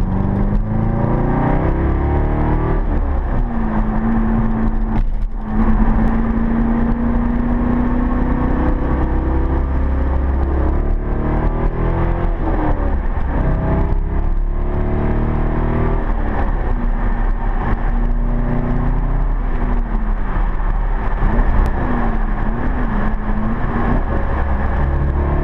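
2000 Corvette C5's LS1 V8 through a Corsa cat-back exhaust, heard from inside the cabin while driving. The engine note rises and falls with the throttle as it pulls and cruises, with a short break about five seconds in.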